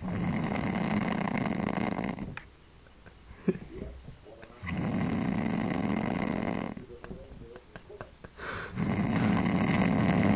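A man snoring loudly: three long snores of about two seconds each, evenly spaced, with quieter gaps and a few small clicks between them.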